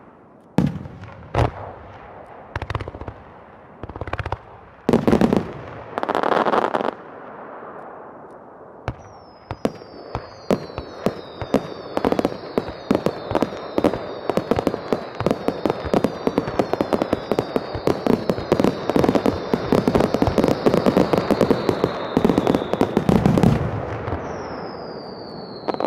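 Fireworks: several separate booming bursts over the first few seconds, then a dense barrage of crackling pops with many high whistles falling in pitch, building to a loud burst near the end, followed by one more falling whistle.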